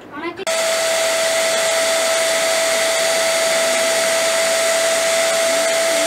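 Handheld electric balloon pump, used as an air blower, switched on about half a second in and running steadily. It gives a rush of air with a constant whine on top.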